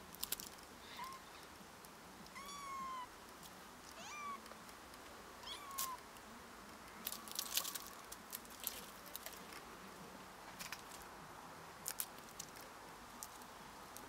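Tabby kitten meowing: four thin, high-pitched meows in the first six seconds, one of them longer, then scattered sharp scratching clicks as its claws grip the bark while it climbs.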